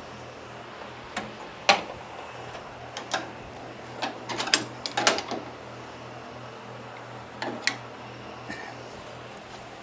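Irregular metallic clicks and knocks of hand tools and parts on a lawn tractor's steering plate being worked loose, the loudest knock about two seconds in and a quick cluster of them around four to five seconds, over a steady low hum.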